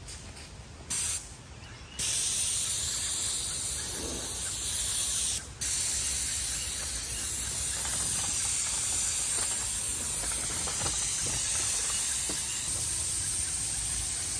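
Paint spray gun hissing as it sprays primer onto brick: a short burst about a second in, then steady spraying from two seconds on, with one brief break when the trigger is let go.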